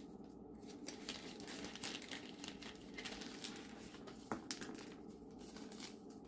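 Light, irregular crinkling of thin plastic packaging handled by hand, with a sharper click about four seconds in.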